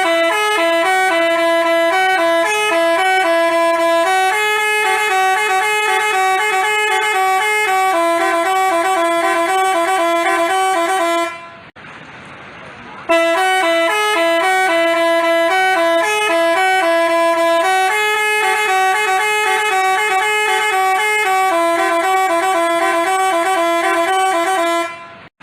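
Basuri telolet multi-tone bus horn playing a tune of stepped horn notes. The tune runs about eleven seconds, breaks off for a moment, then plays again from the start.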